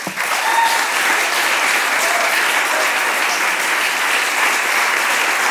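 Audience applauding: dense, steady clapping that starts suddenly and keeps up without letting off.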